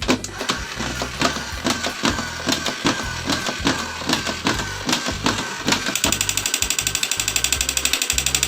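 Background music with a steady beat. About six seconds in, a fast rattling pulse of about nine clicks a second joins it.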